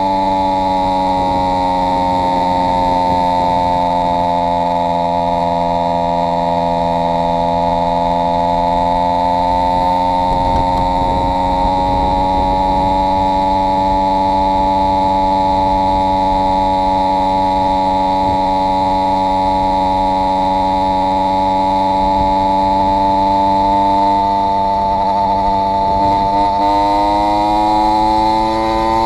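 Two-stroke bicycle engine kit with an AF80 crank and 49 mm cylinder running under load at a steady pitch while cruising, then rising in pitch near the end as it revs up. On this run it has two base gaskets fitted, which the owner says cost it power.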